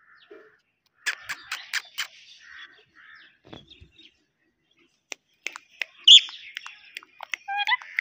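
Rose-ringed (Indian ringneck) parakeet making short chirps and clicks, with one loud, sharp high call about six seconds in and a quick run of chirps near the end.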